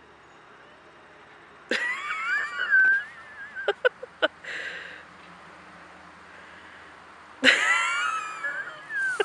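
A person close by laughing hard in two fits: a high, wavering laugh that breaks into a few short 'ha' pulses, with a breathy inhale after the first fit. The first fit comes about two seconds in, the second near the end.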